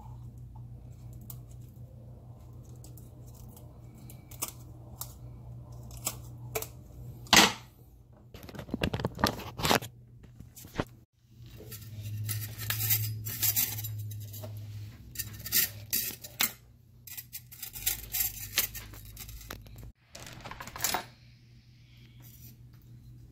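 Kitchen shears snipping through a striped bass's fins, giving sharp clicks and snaps, then a knife scraping along the fish in a quick rasping run of scrapes. A low steady hum runs underneath.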